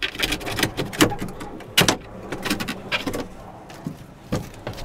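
Irregular knocks, clunks and rattles of a vehicle sunroof frame being worked loose from the roof opening by hand, with a sharp knock a little under two seconds in the loudest.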